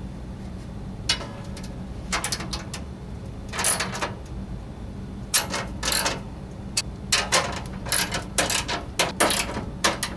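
Socket wrench ratcheting in short, irregular bursts of clicks as the bolts holding a new scraper blade to the snow blower's auger housing are driven in and tightened.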